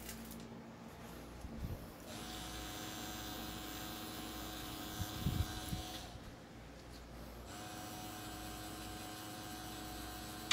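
Pen-style rotary tattoo machine running with a steady hum while shading skin: it starts about two seconds in, stops about six seconds in, and starts again a second and a half later. A few low thumps of handling come just before it stops.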